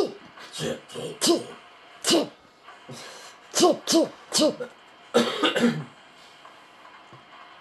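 A person hiccuping over and over: about ten short, sharp hiccups at irregular intervals, some in quick pairs, over the first six seconds.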